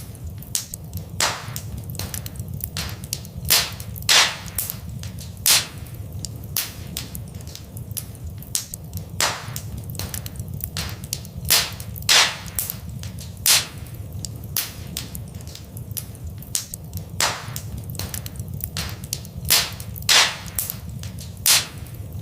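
Wood fire in a fireplace crackling: irregular sharp pops, several a second, with louder snaps every second or two, over a steady low rumble.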